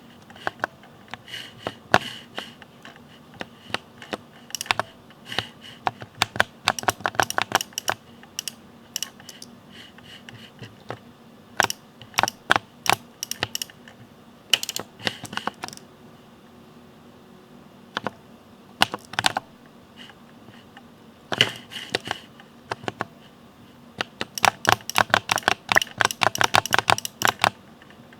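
Mechanical keyboard being typed on in quick runs of keystrokes with short pauses between, the fastest and densest run near the end.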